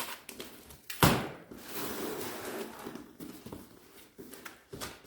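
Table saw parts and packing being handled while unboxing: a sharp knock about a second in, then rustling and light scraping, with a couple of smaller knocks near the end.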